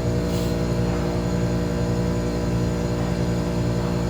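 Chiller running on one compressor: a steady machine hum made of several even tones.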